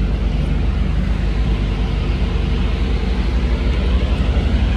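Truck engine idling steadily, a low, even drone that does not change.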